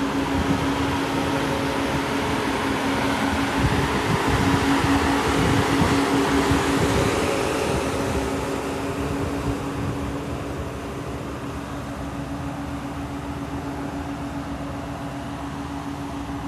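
Mercedes-Benz W140 S600's V12 idling with its cooling fan running: a steady whooshing hum over one constant low tone. It is loudest a few seconds in and eases off after about eight seconds.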